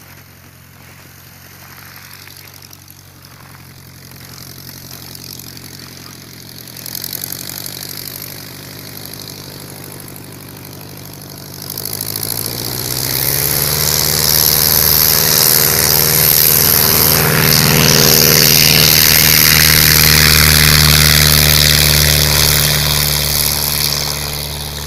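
Light propeller plane's engine running. It is steady and faint at first, swells to loud from about halfway through, then fades near the end.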